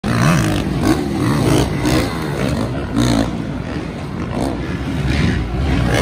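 Several four-stroke supercross dirt bikes riding the track, their engines revving up and down over and over as the riders work the throttle.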